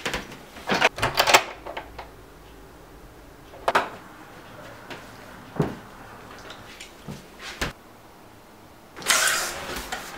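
Scattered knocks and clicks of a person moving about and handling things, with a longer rustling noise about a second from the end.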